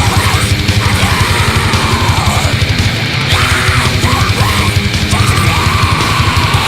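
Death metal played live: heavily distorted guitar over a fast, steady drum beat.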